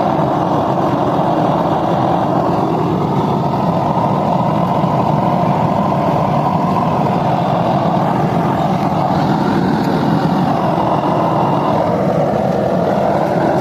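An engine or motor running steadily, a continuous low, dense rumble with no pauses or sudden changes.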